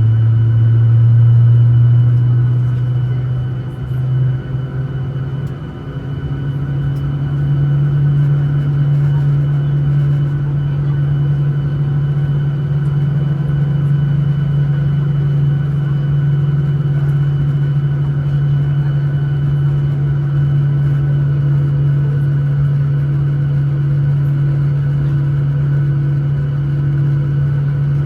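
Cabin noise of a Boeing 737-900ER taxiing: a steady low drone from its CFM56-7B engines at taxi power, heard from inside the cabin. The hum dips slightly and shifts up in pitch about four to six seconds in, then holds steady.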